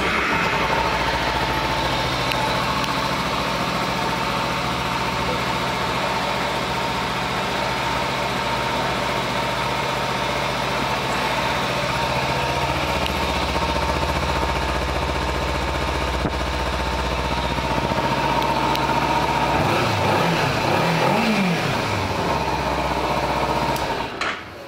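Kawasaki Ninja 300's parallel-twin engine idling steadily, then revved briefly a few times about twenty seconds in and shut off near the end.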